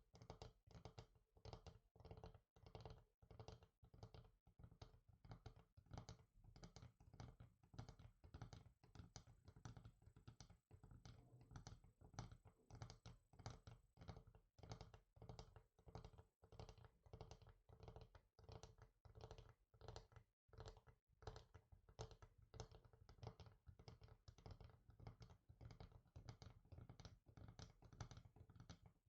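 Fingers and nails tapping quickly and lightly on a hard surface, several small taps a second in an uneven patter.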